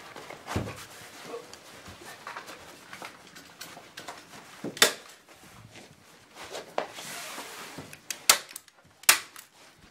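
Breathable roofing membrane rustling as it is handled and folded in against timber and board, with a few sharp knocks, the loudest about five seconds in and twice near the end.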